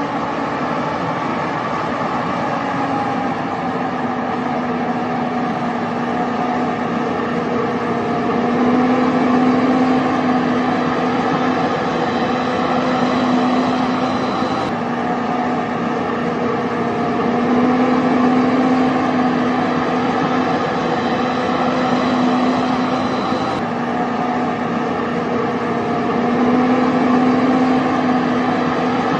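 Steady engine-like motor drone with a slightly wavering pitch, swelling and easing back roughly every nine seconds.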